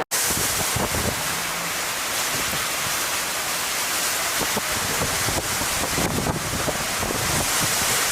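Hurricane wind blowing hard: a steady dense hiss, with uneven gusts buffeting the microphone.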